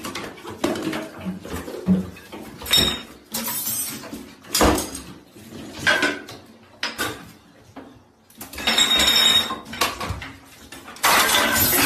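Small household objects clattering as they are knocked over and land on hard surfaces: several separate knocks, then longer stretches of rattling about two-thirds of the way through and again near the end.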